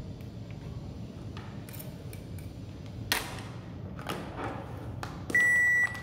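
Washing machine control board's buzzer gives a single long, steady, high beep near the end, the error alarm that goes with the 'FA' (pressure-switch) code on its display. Before it come a few light clicks and knocks from handling the board and probes, one louder about three seconds in.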